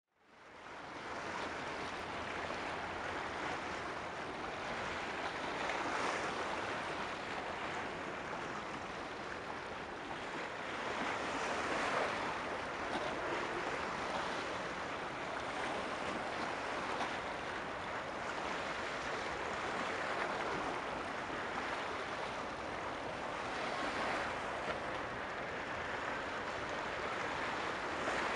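Sea waves washing against a rocky shore: a continuous rush that fades in over the first second and swells every five or six seconds.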